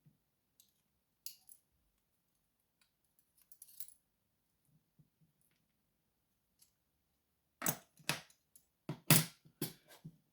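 Small metal parts and tools clicking while a Sesamee padlock is taken apart. Faint scattered ticks are followed, about seven and a half seconds in, by a quick run of louder metallic clacks.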